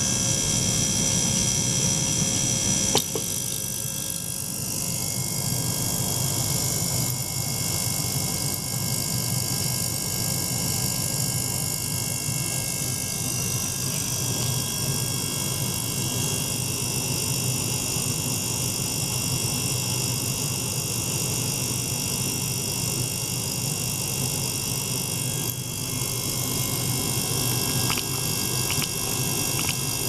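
Ultrasonic cleaning bath running with its water circulated through hoses by a small motor-driven pump: a steady mechanical hum and hiss with thin high whining tones. A single click comes about three seconds in, after which the highest whine fades.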